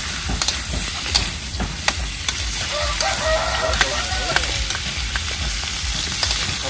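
Beef stir-frying in a very hot pan, sizzling steadily, with sharp clicks and scrapes of the utensil against the pan. A rooster crows in the background about three seconds in.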